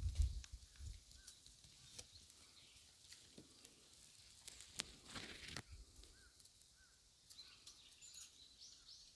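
Faint outdoor ambience: a low rumble dying away in the first second, a few clicks and two short rustles about five seconds in, and small high bird chirps scattered through the second half.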